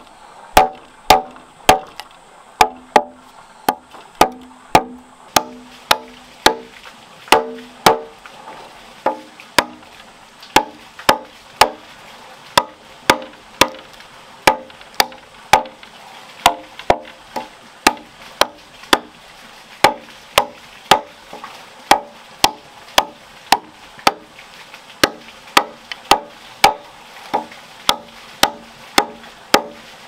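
Machete blade chopping into a wooden log in steady strokes, about two a second, each a sharp knock with a short hollow ring from the wood.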